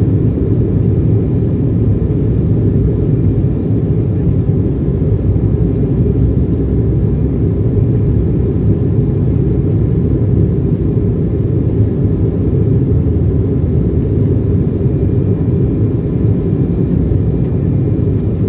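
Jet airliner's engines at takeoff power and its wheels rumbling on the runway, heard inside the cabin during the takeoff roll: a loud, steady, low rumble.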